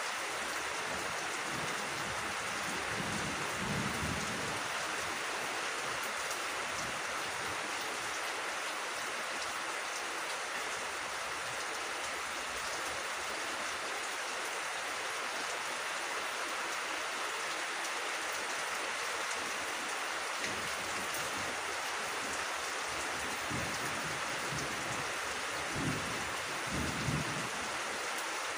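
Steady rain falling on leaves and grass: an even hiss flecked with fine drop ticks. A few brief low thumps stand out about three seconds in and again near the end.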